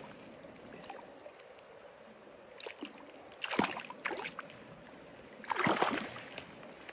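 A hooked rainbow trout splashing and thrashing at the surface of a shallow creek as it is drawn in, with a few splashes about halfway through and a louder burst near the end, over the steady trickle of the stream.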